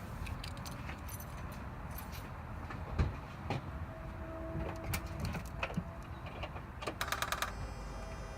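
Scattered clicks and knocks of keys and car controls being handled inside a car before the engine is started. About 3 s in there is one louder knock, and about 7 s in a quick run of clicks, after which a faint steady high tone begins.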